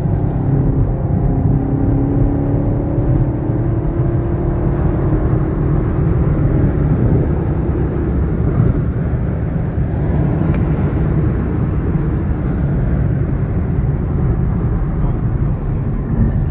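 Steady low rumble of a car on the move, road and engine noise, with a faint humming tone that fades out about six seconds in.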